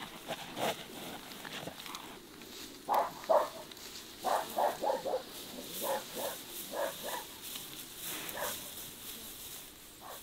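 A dog barking repeatedly: about a dozen short barks in quick groups of two to four, starting about three seconds in and stopping near the end.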